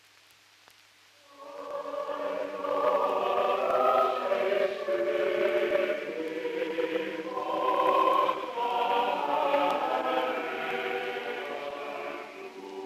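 Episcopal church choir singing, coming in about a second and a half in after a brief near-silence.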